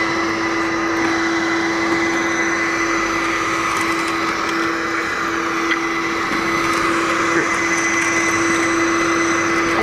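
Vacuum cleaner running steadily: a constant motor whine over the rush of air.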